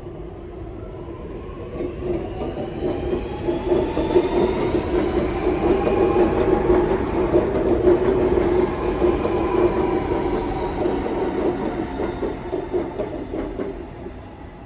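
Sydney Metro Alstom Metropolis train running past on the metro tracks: a steady hum with whining tones that rise and then fall. It builds about two seconds in, is loudest in the middle and fades away near the end.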